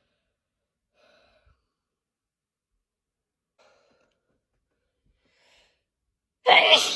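A person's faint breathy gasps, three of them a couple of seconds apart, then a loud sneeze near the end. Part of a long sneezing fit from a hay-fever allergy attack.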